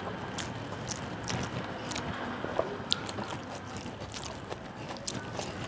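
Close-miked eating sounds: wet chewing with irregular sharp mouth clicks and smacks, along with fingers mixing rice with mashed vegetable on a metal plate, over a steady background hiss.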